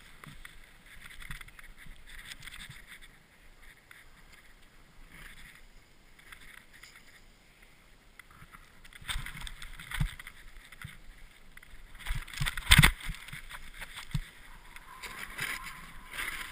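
Snowboard sliding and carving through soft powder snow, with a hiss and swish of snow under the board. It grows louder about halfway through, with sharp thumps, the strongest a little past two-thirds of the way in.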